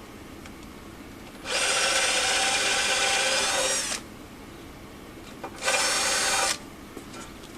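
Electric power drill with a 5 mm bit drilling out the rusted-off remains of a 6 mm bolt in a cast-iron stove top, to make the hole for re-tapping. It runs steadily for about two and a half seconds, then for one shorter burst near the end.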